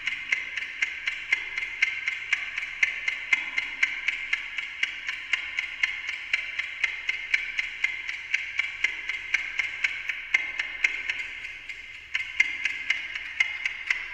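Amplified ticking of a Westclox Silver Bell Monogram alarm clock played through a voltage-controlled digital delay, each tick followed by fainter delayed copies, a few ticks a second. The ticking thins out briefly about twelve seconds in, then resumes.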